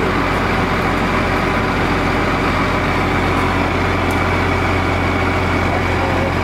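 Heavy vehicle engine idling steadily, a constant deep drone that neither rises nor falls.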